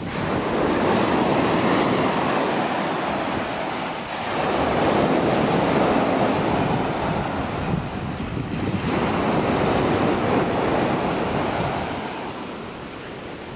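Black Sea surf washing up and foaming over a sandy beach, the rush of water swelling and ebbing every few seconds and fading near the end. Wind buffets the microphone.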